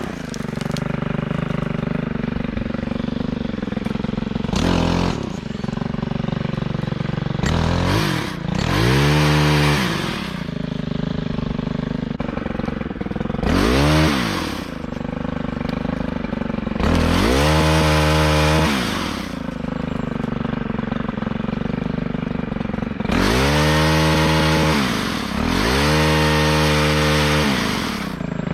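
Gas chainsaw revved to full speed in repeated bursts of a second or two, dropping back to idle in between, while cutting off lower limbs to raise a tree.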